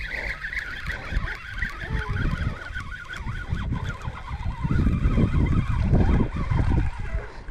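Spinning reel being cranked to bring in a hooked fish on a bent rod, with wind buffeting the microphone in irregular gusts that are loudest in the second half.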